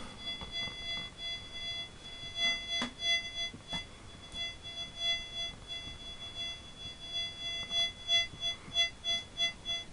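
Detector Pro pistol probe pinpointer sounding its electronic tone as it is swept over a dime, signalling that it has picked up the coin. The tone comes and goes in short pulses that quicken to about three a second near the end. Two faint clicks about three seconds in.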